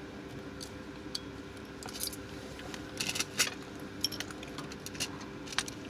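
Small metal tools and phone parts clicking and tapping as a smartphone is taken apart: scattered light clicks, several close together around the middle, over a steady faint hum.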